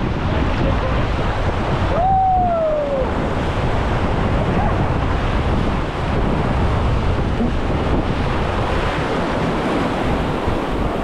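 Rushing river water around a raft with wind buffeting the microphone, a steady loud roar. About two seconds in, a brief tone rises and then falls over about a second.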